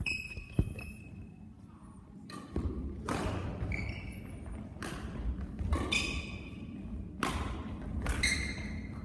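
Badminton rally: rackets hit the shuttlecock in sharp cracks about once a second, about seven in all. Shoes squeak briefly and high-pitched on the court floor, several times.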